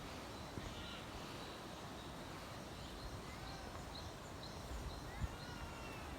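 Faint animal calls: a run of short, high chirps about twice a second, then a few brief gliding calls near the end, over a low outdoor rumble with occasional soft thumps.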